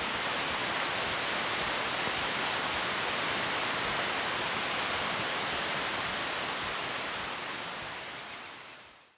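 Steady rushing noise with no rhythm or pitch, fading out over the last second and then cutting off.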